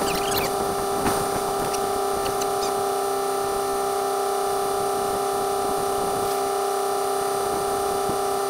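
Compressed air from a portable air tank rushing through the hose and chuck into a tractor's front tyre: a steady whistling hiss that holds one pitch throughout.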